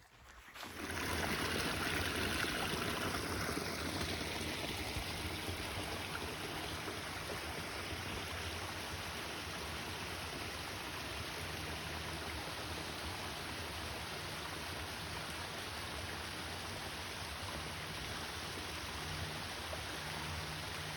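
Stream water rushing in a steady, even hiss that sets in about a second in.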